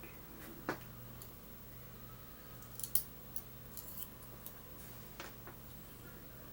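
Scattered small, sharp metallic clicks and ticks from small brass lock pins and the tools handling them, with a quick cluster of clicks about three seconds in.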